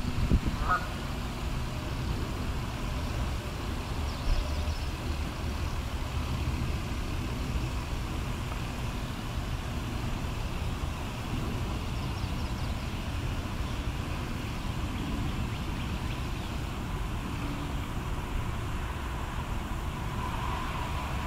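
Steady low rumble of outdoor background noise, with a few faint short calls about a second in and again near the end.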